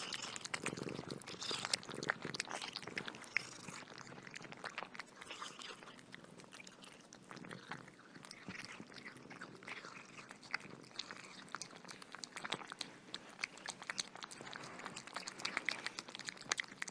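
Close-up crunchy chewing: many small, irregular crackles and clicks.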